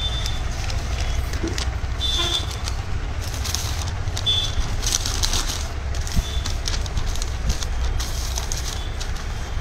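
Steady low background rumble, with a few short high-pitched toots and some light clicks.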